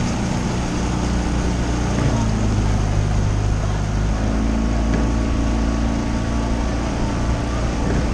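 Outboard motor of a coaching launch running steadily under way, its pitch shifting a little a couple of times, over wind and water noise.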